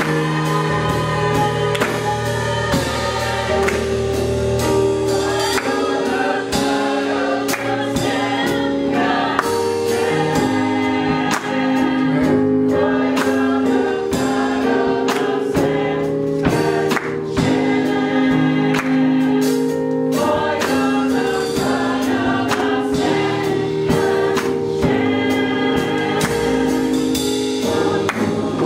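Church choir singing a gospel song in harmony, over sustained accompaniment chords and a steady percussion beat.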